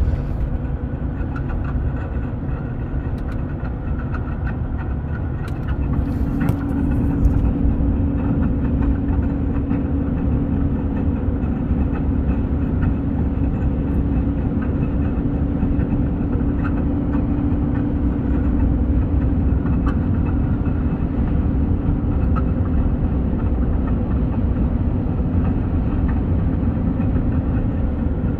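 Car engine running in the engine compartment, with a steady droning tone joining the low rumble about six seconds in and easing off near twenty-two seconds: the unexplained strange noise from the front left of the engine bay.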